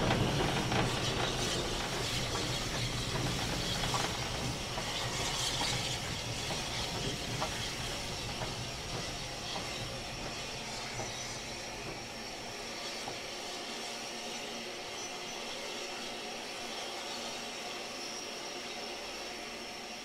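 Steady hiss of steam on the footplate of a Southern Railway Maunsell S15 steam locomotive, with a few clicks and knocks in the first seconds. A low rumble underneath fades away by about halfway, leaving the hiss.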